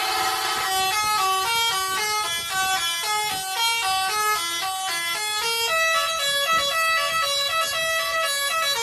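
A bus's basuri musical 'telolet' horn playing a tune, note after note in quick succession, shifting to a lower run of notes a little past halfway.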